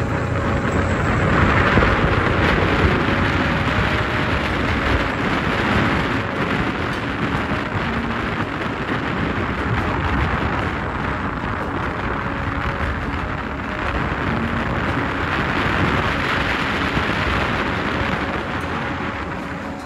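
Wind buffeting the microphone over the low rumble of a vehicle travelling along a road, a steady noisy hiss and rumble that never stops.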